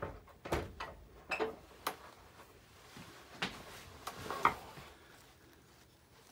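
Scattered light knocks and clicks of hand carving tools being handled and set down on a wooden bench, with alder shavings brushed across the carving; the sharpest knock comes a little after four seconds in.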